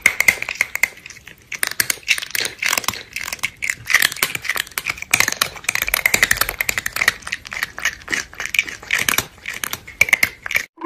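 Crunchy food being chewed: a rapid, irregular run of crunches and clicks.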